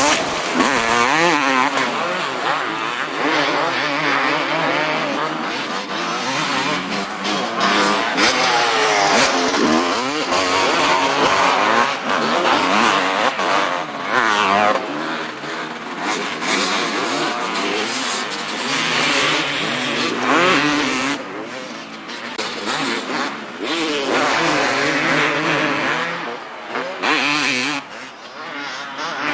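250cc two-stroke motocross bikes racing round a dirt track, their engines revving hard and dropping again and again as the riders shift and work the throttle, loudest as they pass close, fainter about three-quarters of the way through and near the end.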